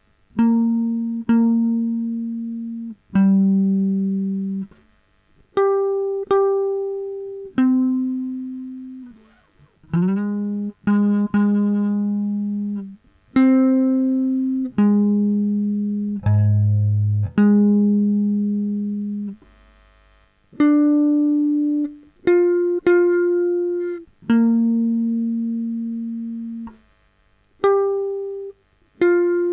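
Guitar playing a sungura melody slowly, one note at a time. About twenty clean plucked notes each ring and fade, some in quick pairs, with short pauses between phrases and a slide up into a note about ten seconds in.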